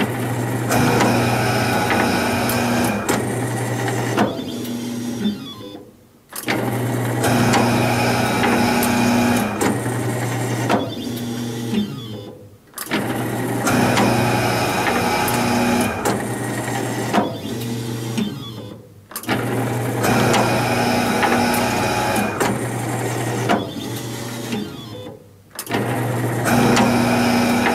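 EBM 18PLC/19PLC electric programmable guillotine paper cutter running through about five cut cycles in step-and-repeat (index) mode, its back gauge stepping down 2 inches for each cut. Each cycle is about six seconds of steady motor hum with a higher machine tone that comes and goes, and the machine falls quiet briefly between cycles.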